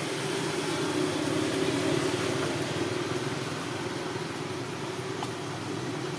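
A steady mechanical hum with a hiss over it, swelling slightly about a second or two in.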